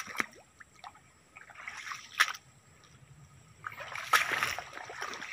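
Footsteps moving through wet, overgrown ground: scattered rustles and splashes, with a sharp one about two seconds in and a louder burst of splashing and rustling about four seconds in.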